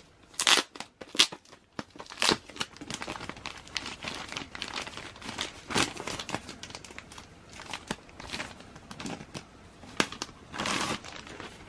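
Packaging around a table calendar being crinkled and torn open by hand: a steady run of sharp crackles and rustles, with a longer, louder rustle near the end.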